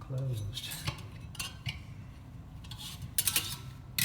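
Scattered light metallic clicks and clinks from a metal supply-air register being handled and its louvers worked, with a cluster of rattles about three seconds in.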